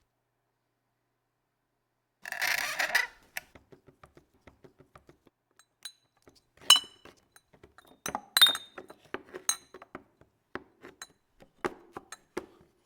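Hand-made foley with small props. After a short rustle, a run of light irregular taps and clicks follows, with a few sharp glassy clinks that ring briefly, the loudest about two thirds of the way through.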